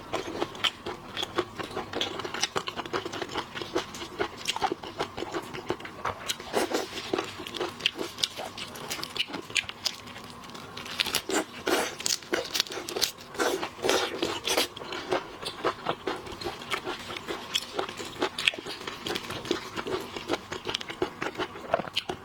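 Close-up eating sounds of a person eating seafood: crunching and chewing with many sharp clicks and crackles, busiest about halfway through.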